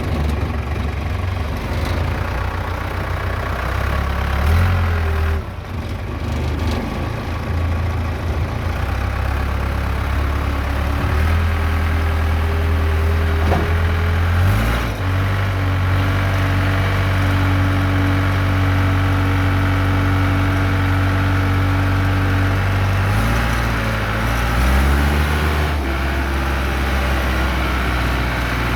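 Case 580D backhoe's diesel engine running, its speed shifting up and down a few times and held steady in between.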